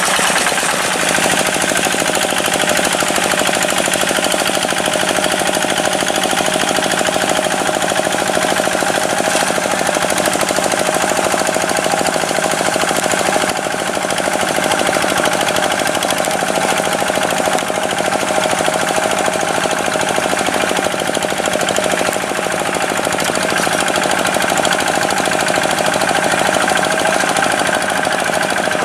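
Tractor diesel engine running steadily under load with a rapid, even clatter.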